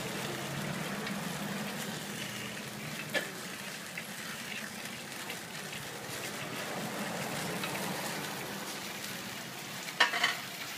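Nom krouk rice-cake batter sizzling in an oiled dimpled metal pan over a fire, a steady frying hiss. A sharp click about three seconds in and a few louder clicks near the end.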